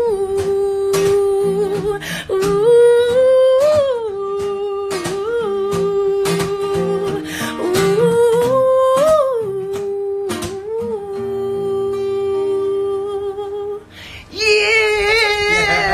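A woman humming wordlessly, holding long steady notes broken by small rising melodic turns, with light taps underneath. About fourteen seconds in her voice comes in louder and wavering.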